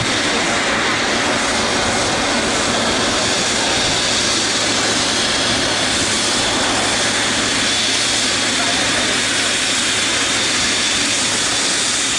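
Boeing 777-300's twin jet engines running at low taxi thrust as the airliner rolls slowly past: a steady rushing noise with a constant high whine.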